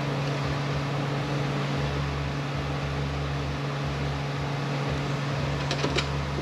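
Steady mechanical hum, like a running fan, with a constant low tone. A few short, sharp clicks come near the end.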